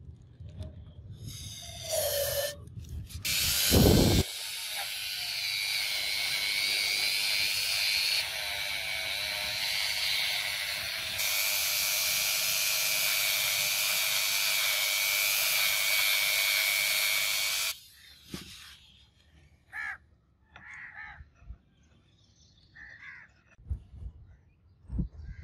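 Handheld electric rotary tool running at high speed with a steady whine, working the end of a metal tube from a hydraulic jack; its pitch steps slightly a couple of times. It stops about eighteen seconds in, and a few light clicks and scrapes follow.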